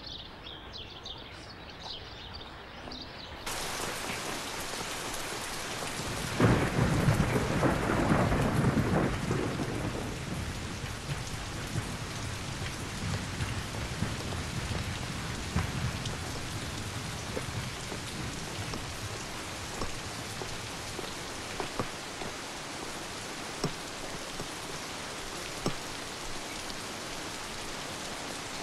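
Steady heavy rain that starts suddenly about three seconds in, with a long roll of thunder beginning about six seconds in and lasting about three seconds. Scattered drips sound over the rain for the rest of the time.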